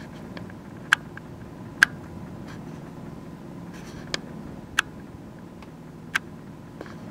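Steady low hum of an idling vehicle, with five sharp, brief clicks at irregular spacing.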